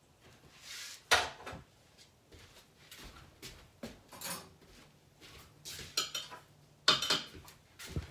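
Kitchen pots, dishes and metal utensils being handled: scattered clinks and scrapes, with a sharp knock about a second in and another near the end.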